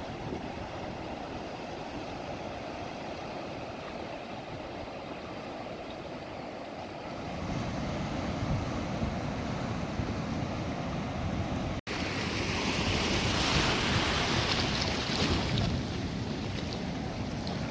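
Wind noise on the microphone over a steady rush of water, with no engine or voice tones. The sound cuts abruptly about twelve seconds in, and after that the hiss is brighter and louder.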